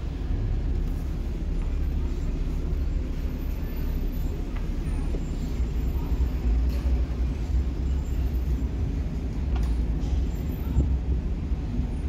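Steady low rumble of vehicle engines as cars roll slowly past close by.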